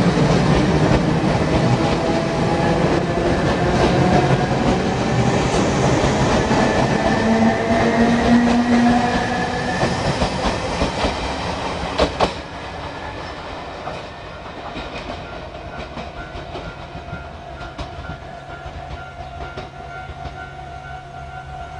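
Tobu Noda Line electric train pulling away, its traction motors whining upward in pitch as it gathers speed, with wheels clattering over the rail joints. A sharp clack comes about twelve seconds in, after which the sound drops sharply and the train fades off as its last car goes by.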